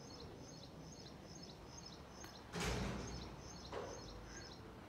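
A bird repeating a short high chirp over and over, about two or three times a second, over a low outdoor hiss. A brief rushing noise about halfway through is the loudest sound, with a fainter one about a second later.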